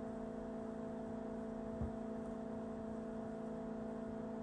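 Steady electrical hum with a faint hiss beneath it, and one soft click about two seconds in.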